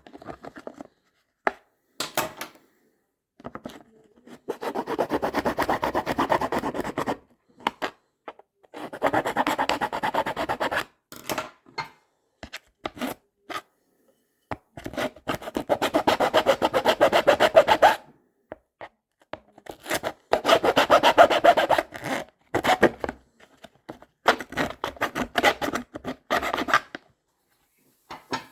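Small hand file rasping at the edge of a hole cut in a carrying case, in about five runs of quick strokes lasting two to three seconds each, with short clicks and handling knocks between them.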